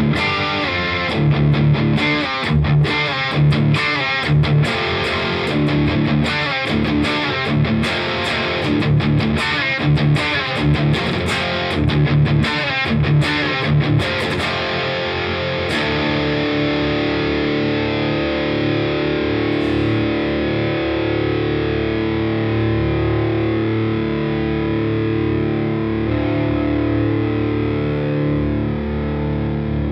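Gordon Smith GS1000 electric guitar played through an overdriven Fender Bassbreaker 15 amp: distorted rock riffing with sharp, rhythmic picked chords. About fifteen seconds in the picking stops and a distorted chord is left sustaining steadily.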